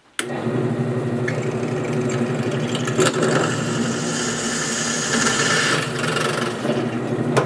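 Mini benchtop drill press running steadily while a freshly resharpened twist bit drills into aluminum, with a hiss of cutting from about three seconds in to about six. The sharp bit cuts cleanly where the old bit had failed because it was dull.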